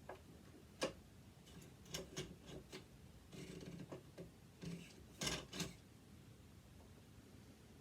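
Scattered small clicks and taps of tools and metal parts on a sewing machine being taken apart, with a short scraping stretch a little before the middle and the loudest couple of clicks just past halfway.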